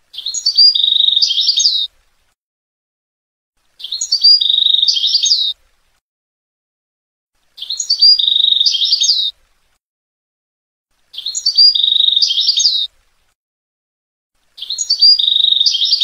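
European goldfinch song: the same short twittering phrase, with a held note in the middle, repeated five times about every three and a half seconds, with complete silence between. It is a looped tutor recording of the Jordanian song type used to teach caged goldfinches.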